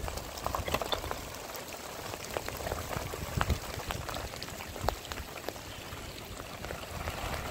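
Rain falling steadily, with many separate sharp drop hits scattered through it.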